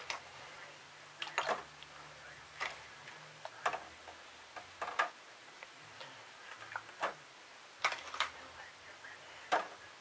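Small metal Saito FA-120 engine parts clinking and knocking as they are dropped one at a time into an ultrasonic cleaner's tank of cleaning solution, about a dozen light, irregular knocks.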